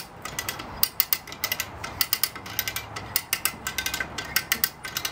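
Hand-operated come-along ratchet being cranked, its pawl clicking in quick runs about every half second as it winches a boat up onto its trailer under load.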